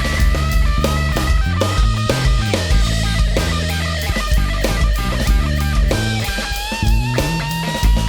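Live rock band playing an instrumental break: drums keep a steady beat under a bass line and a lead melody of long held notes that bend in pitch.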